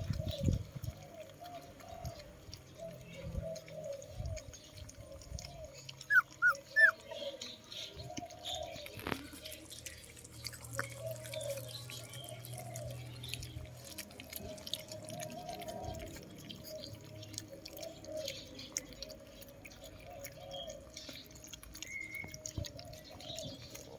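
Puppies whimpering and whining on and off throughout, with three short, high squeaks about six to seven seconds in.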